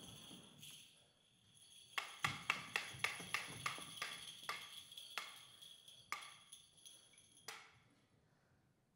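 Hand percussion: sharp clicks come in a quick run of about a dozen strikes that slows and thins out, over a faint, steady high jingling ring that stops near the end.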